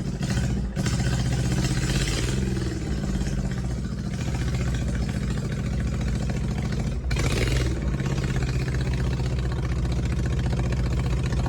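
Small lawn mower engine powering a pickup truck, running steadily under throttle; its note dips and picks up again twice.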